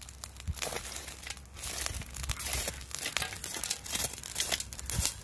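Irregular crinkling and crackling from an aluminium-foil parcel of salmon cooking on hot charcoal, a dense run of small sharp crackles.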